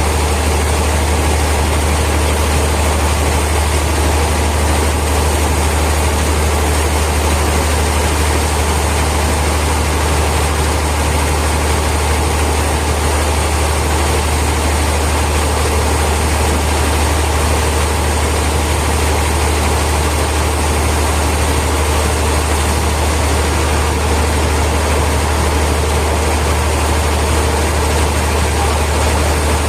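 Heavy sawmill machinery running steadily: a loud, unchanging low hum with an even mechanical hiss above it, with no cutting strokes or changes in load.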